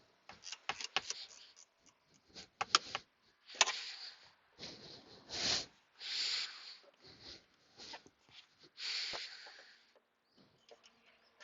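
Sharp clicks and knocks, then several short hissing, scraping sounds, from hands and tools working on a car's interior trim and centre console.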